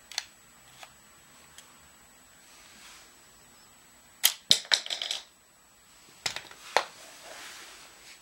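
Clicks and knocks of a 3D-printed PLA toy crossbow being handled and loaded with a pencil bolt: a few light clicks, then a quick run of sharp plastic clicks about four seconds in, and two more sharp knocks a couple of seconds later.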